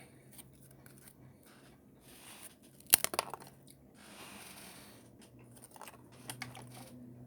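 A person biting and chewing a Pringles potato chip: a short cluster of loud, crisp crunches about three seconds in, and a few fainter crunches later on.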